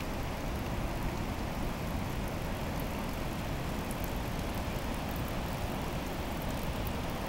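A river in full flood pouring over a waterfall and through whitewater rapids: a steady, unbroken rush of water.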